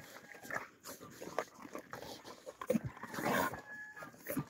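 Alabai puppies crunching and chewing dry kibble, with many quick irregular crunches and clicks and snuffling at the food. The sound is loudest about three seconds in, and there is a faint thin whine near the end.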